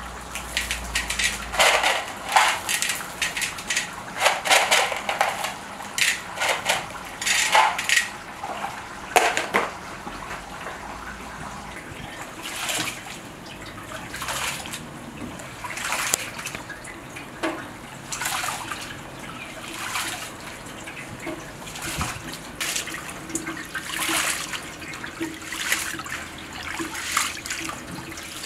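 Rice being washed by hand in a large metal basin of water: repeated sloshing and splashing strokes, heavier and more frequent in the first few seconds, over water running in from a tap.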